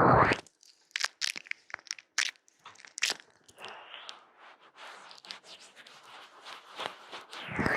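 Close-up ASMR ear massage: hands rubbing on a microphone's ear. A loud rustle comes in the first half second, followed by a run of short crackling, crunchy strokes and softer rustling.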